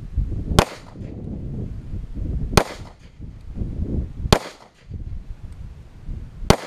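Four shots from a semi-automatic handgun, fired slowly at about two-second intervals. Each is a sharp crack with a brief echo after it.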